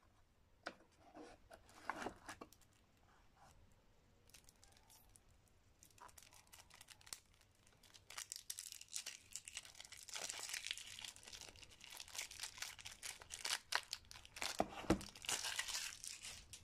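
Clear plastic shrink wrap being torn and peeled off a deck of game cards, crinkling. A few faint clicks of handling come first, and the crinkling starts about halfway through and goes on busily to the end.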